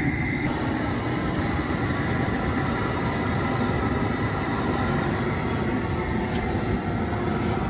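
Steady rushing of a propane crawfish cooker's burner under a pot of water at a rolling boil.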